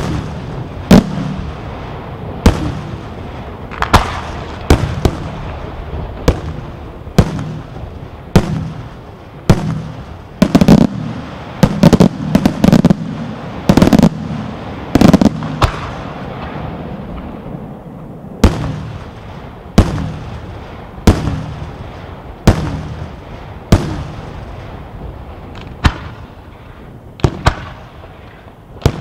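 Aerial firework shells bursting one after another, sharp bangs about every second, coming thicker and faster in the middle, with a low rumble lingering between the reports.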